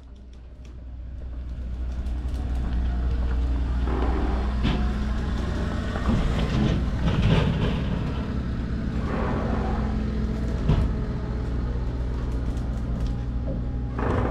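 An engine running steadily with a low, even hum, with irregular louder noises in between.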